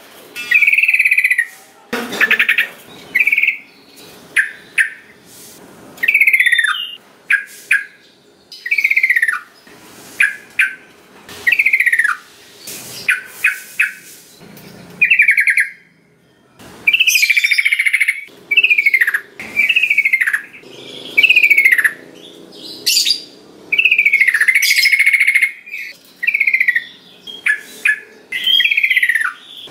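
Yellow-vented bulbul (trucukan) singing: short, loud phrases of bright chirps and falling whistled notes, repeated every second or so with brief pauses between them.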